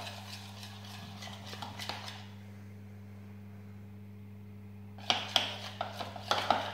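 Metal spoon clinking and scraping against a bowl while stirring runny slime, then a pause of about three seconds, then quick clinks of stirring again about five seconds in.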